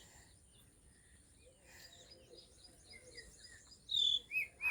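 Small birds chirping faintly, then a few louder, clear chirps that sweep downward, beginning about four seconds in.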